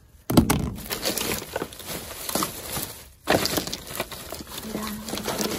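Rummaging in a black plastic garbage bag: the bag and plastic wrappers rustle and crinkle, with small items knocking together. It starts abruptly, with a second loud burst of handling about three seconds in.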